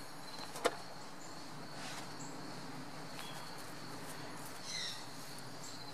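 Faint outdoor ambience: a steady, high-pitched insect drone, a single sharp click about half a second in, and a short chirp near the end.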